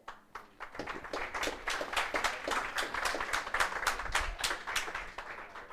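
Audience applauding: scattered claps that build into steady applause about a second in and thin out near the end.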